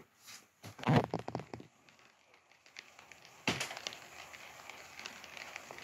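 A short burst of crackling and rustling about a second in. Then, about halfway through, a steady hiss with fine crackles cuts in suddenly and carries on.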